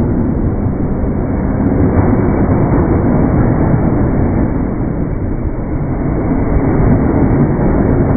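Slowed-down audio of an electric commuter train passing a railway level crossing: a deep, steady rumble with no high sounds at all.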